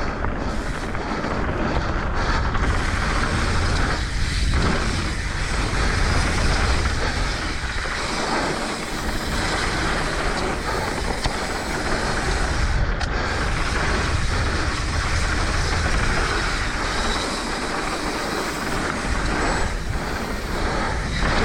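Mountain bike descending a dirt trail at speed: wind rushing over the action camera's microphone together with the tyres rolling on dirt and the bike rattling, a steady loud rumble and hiss.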